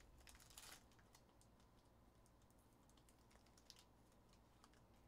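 Faint crinkling and scattered small clicks of a foil trading-card pack being torn and pulled open by hand, with a brief louder crinkle just under a second in.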